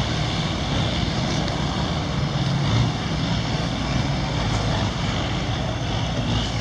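Long-tail boat engines running close by in a steady drone, over the wash of choppy river water.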